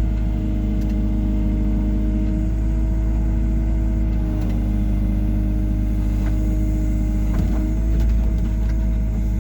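Hyundai R140W-7 wheeled excavator's diesel engine running steadily, a constant low rumble with a steady whine over it.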